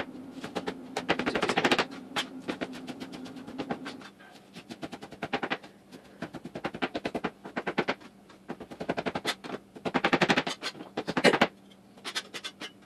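Kitchen knife chopping fresh spinach on a cutting board: quick, even strokes of the blade striking the board, in runs of one to several seconds with short pauses between.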